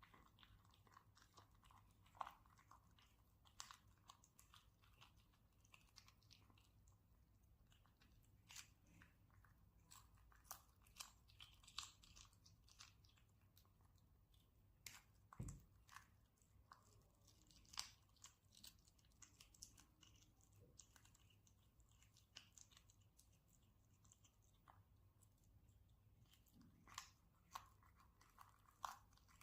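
Kitten chewing and crunching on fish: faint, irregular crunchy clicks. A single low thump comes about halfway through.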